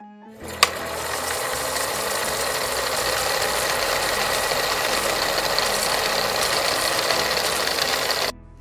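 A steady, even rattling sound effect under a quiz question, with a sharp click about half a second in; it cuts off suddenly near the end.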